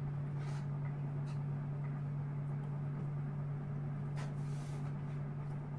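Steady low hum at one unchanging pitch, with a few faint soft clicks or rustles.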